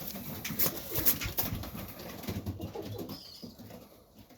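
Domestic pigeons cooing low and softly in a loft, with a few sharp clicks and knocks in the first second and a half.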